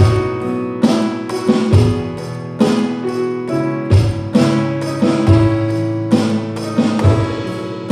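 A drum kit played along to a song with guitar and bass, with a steady beat of drum strikes.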